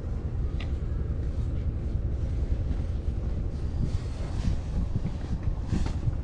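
Wind buffeting an action camera's microphone: a steady, gusting low rumble, with a short high chirp about half a second in.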